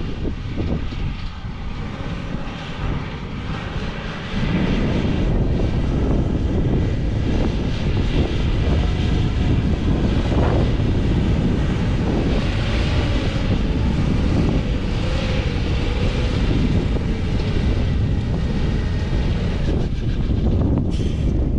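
Steady hum of a camera drone's motors and propellers, mixed with wind on the microphone; it gets louder about four seconds in.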